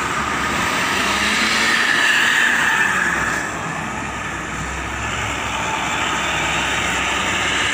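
Intercity bus pulling away from the roadside and driving off, its engine and tyres making a steady road noise that is loudest in the first three seconds and eases after that.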